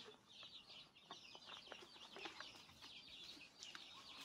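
Faint, continuous peeping of chicks: many short, high notes overlapping one another, with a few light clicks among them.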